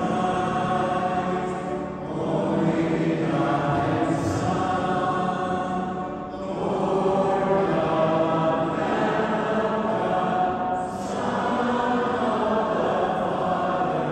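A church congregation singing a hymn together, in phrases of about four seconds with short breaks between them.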